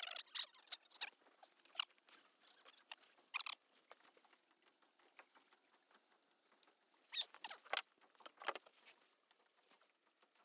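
Close hand-handling of a tangled nylon gill net: scattered short rustles, clicks and squeaky scrapes as the mesh is picked apart around a caught crab, quieter in the middle and busier again near the end.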